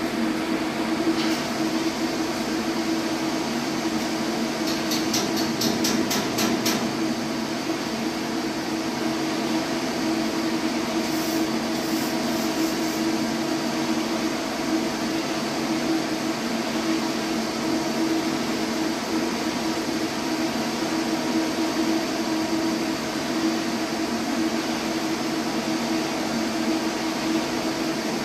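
Steady drone of running machinery in a ship's engine room, with a constant deep hum that does not change. About five seconds in, a quick run of light metallic ticks sounds over it.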